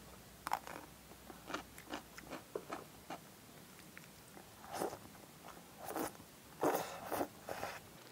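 Close-up eating sounds: crisp crunching bites of yellow pickled radish (danmuji), then louder wet slurps and chewing of black-bean-sauce noodles (jajangmyeon) in the second half.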